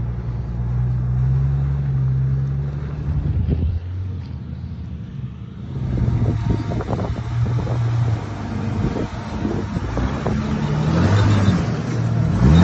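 Off-road vehicle's engine working at low revs, its pitch rising and falling as it crawls along. From about six seconds in, short knocks and rattles come from the vehicle jolting over rough trail ground.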